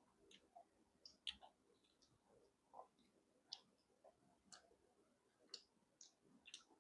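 Near silence broken by faint, scattered mouth clicks and smacks of someone chewing food, about two a second at irregular intervals.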